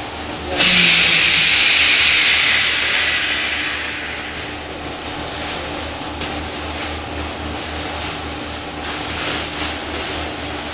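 A sudden loud hiss of rushing air about half a second in, fading away over the next three seconds, over a steady low machinery hum.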